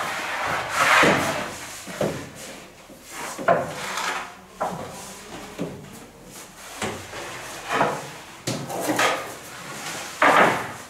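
Long wooden baker's peel scraping along the oven floor and knocking against the oven mouth and trays while baked loaves are pulled out of the oven: a run of irregular short scrapes and knocks, about one a second.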